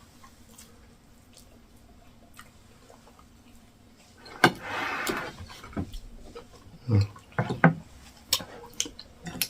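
Close-up eating sounds. After a few quiet seconds there is a short, noisy slurp, then wet lip smacks and clicks and a couple of short low hums as the food is eaten hot.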